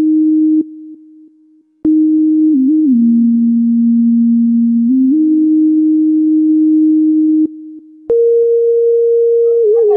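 Film background score: a single pure electronic tone held steady, stepping slowly between a few pitches. It fades out in steps about a second in and comes back abruptly with a click, dips again near the end, and returns a step higher.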